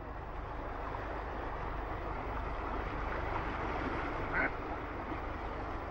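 Steady rush of flowing river water, with a single short duck quack about four and a half seconds in.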